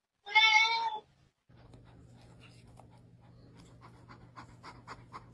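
A loud, high, drawn-out cry of under a second near the start. Then a tabby cat pants faintly and quickly with its mouth wide open, over a low steady hum.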